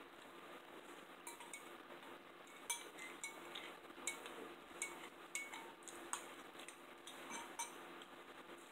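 Spoons clinking and scraping against bowls of soup beans: a dozen or so light, irregular clinks, each with a brief ring.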